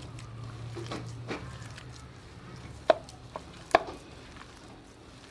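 Boiled potatoes being broken up and squeezed by hand in a bowl: soft squishing and crumbling, with two sharp clicks against the bowl about three and almost four seconds in.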